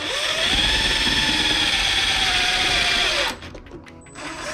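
Milwaukee M18 Fuel cordless impact driver driving self-tapping screws into the metal housing of a garage door opener. It runs steadily with a whine that rises slightly in pitch, winds down and stops a little after three seconds, then starts again near the end.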